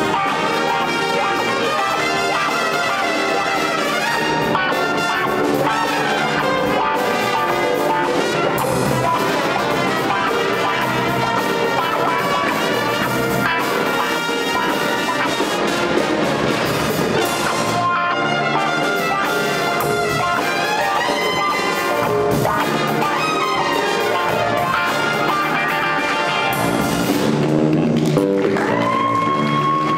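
Live funk-jazz band playing with a full horn section, with electric guitars, piano, tuba and drum kit; a trumpet stands out, playing a solo.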